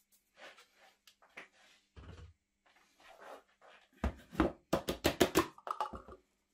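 Soft rustling and scraping as flour is scattered over a plastic chopping board. Then an upturned plastic food-processor bowl is knocked down on the board in a rapid run of sharp knocks to shake the pastry dough out.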